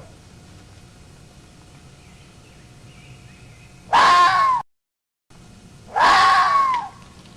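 A fox screaming: two loud calls about two seconds apart, each under a second long, with a pitch that rises slightly and then falls. The first call cuts off abruptly.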